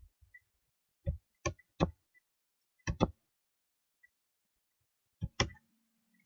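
Sharp clicks of computer keyboard keys being pressed, about seven in small groups of one or two, with silence between them.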